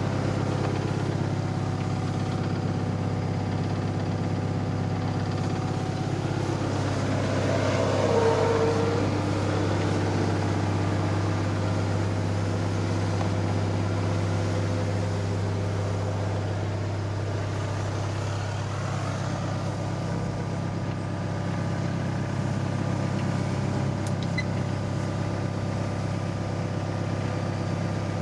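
Diesel engine of a 2016 Hyundai 80CR-9A excavator idling steadily, heard from inside the cab, with a brief louder sound about eight seconds in.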